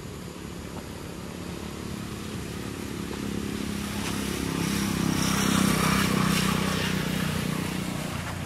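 A passing motor vehicle's engine: a steady low hum that grows louder over several seconds, peaks past the middle, then eases off near the end.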